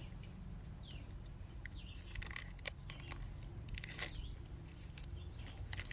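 A package of small replacement mower flywheel keys being opened and handled: faint crinkling and tearing with scattered small clicks, a little stronger about two and four seconds in.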